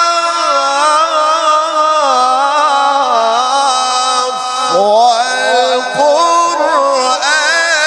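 A male Quran reciter chanting in long, ornamented held notes. The melody winds through turns and dips low, then rises in pitch about five seconds in.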